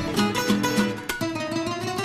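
Show theme music: a quick run of plucked notes, about four a second, settling into a held, slightly rising note about halfway through.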